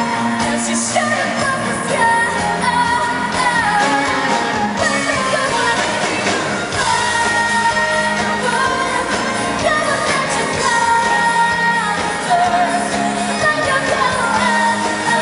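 A female pop singer singing live over a full pop band backing, with long held notes that waver in pitch, heard in a large hall.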